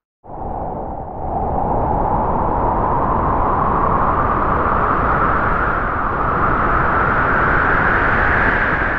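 A loud, steady rushing noise that cuts in suddenly just after the start and slowly rises in pitch.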